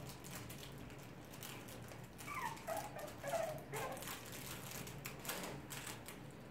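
Puppies whimpering: a few short, high whines that fall in pitch, about two to four seconds in, over light clicking of claws on a hard tiled floor.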